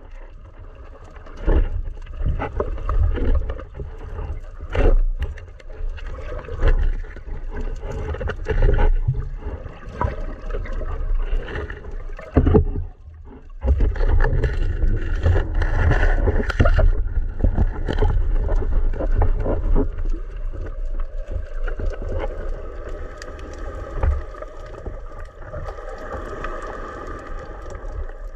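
Muffled underwater rumble of water moving around a camera housing, broken by repeated knocks and bumps as a speargun and a speared sea bass are handled underwater.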